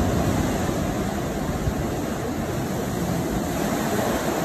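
Sea waves surging into a narrow rock sea cave, a loud, thunderous rushing and booming that swells and eases.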